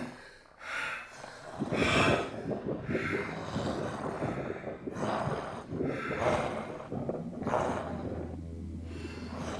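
Film sound effects of a monster's heavy, snorting breaths, a rough burst roughly every second. A low steady hum comes in near the end.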